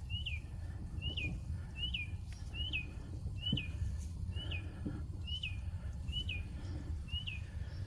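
A bird chirping over and over, one short high chirp roughly every 0.8 seconds, over a low steady rumble.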